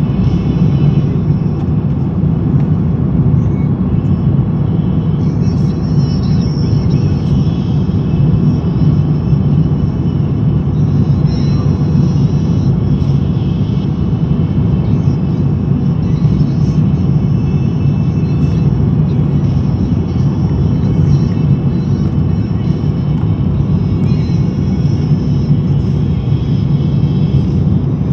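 Steady roar inside the cabin of an Airbus A330-300 on final approach, heard at a window seat over the wing: engine and airflow noise with the flaps extended.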